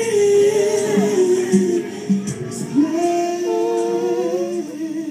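Worship singing: voices hold long notes that slide up and down between pitches, fading toward the end.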